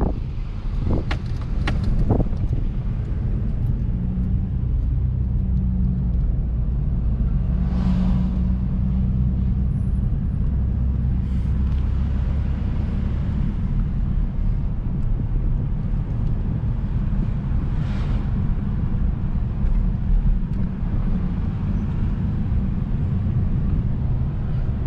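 Car driving: a steady low engine and road rumble, with a few sharp clicks about one to two seconds in.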